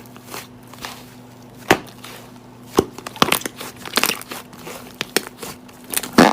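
Slime being handled by hand, giving irregular crackling clicks and pops, with a louder pop near the end.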